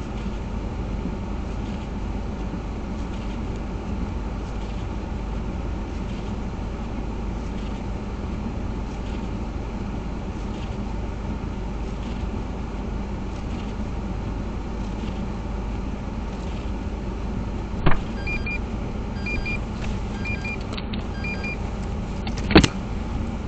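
Steady hum inside a stationary car with the windshield wipers sweeping heavy snow off the glass. Near the end come a sharp click, a few short electronic beeps, and another sharp click.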